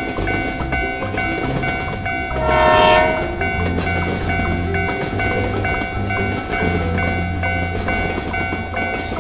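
Animated-cartoon train sound effects: a passing train's running noise and one short train horn blast about two and a half seconds in, the loudest moment, over a backing music track.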